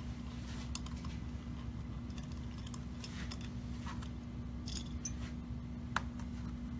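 Scattered light metallic clicks and clinks of a screwdriver and a Keihin carburetor body being handled while a jet is fitted, with one sharper click near the end. A steady low hum runs underneath.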